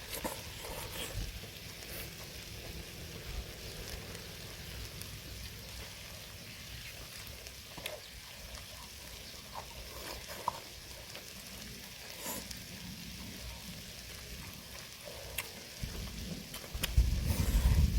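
Pork belly and kimchi sizzling on a grill: a steady hiss with scattered small clicks. A louder low rumble comes in near the end.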